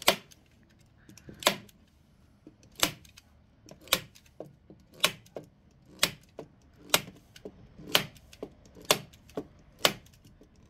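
Manual staple gun firing staples through leather covering into a wooden speaker box: a sharp snap about once a second, around ten in all, with fainter clicks in between.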